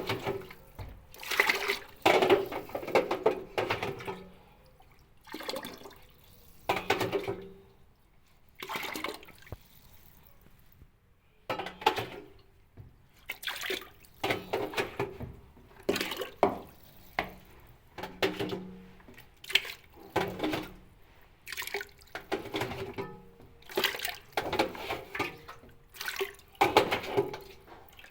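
Water splashing and pouring in short, irregular bursts every second or two, with quieter gaps between them.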